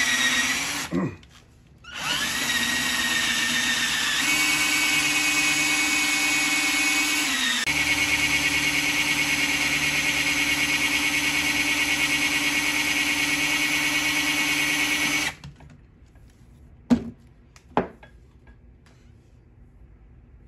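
Cordless hand drill boring a finger hole into a bowling ball, the motor running under load. It stops briefly about a second in, spins back up, changes speed twice, then stops about fifteen seconds in. Two sharp knocks follow near the end.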